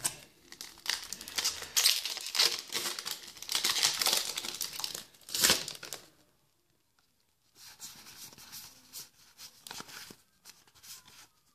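Foil booster-pack wrapper crinkling and tearing open in loud crackly bursts for about six seconds. After a short pause, softer rustling and light clicks of trading cards being flipped through.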